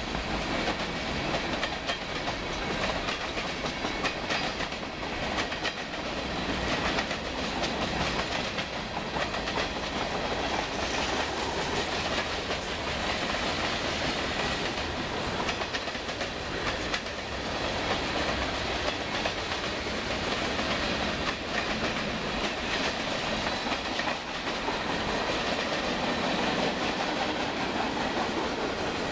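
Freight train cars rolling past at steady speed, their wheels clicking repeatedly over the rail joints.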